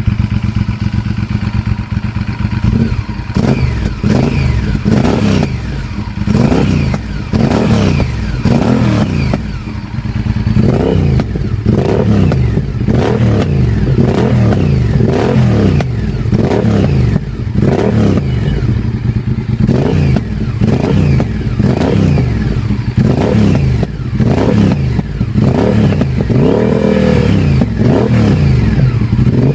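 Honda VTR1000F Firestorm's 90-degree V-twin, breathing through a Two Brothers aftermarket exhaust. It idles for a few seconds, then is revved over and over in quick throttle blips, each rising and dropping back. A longer, higher rev comes near the end.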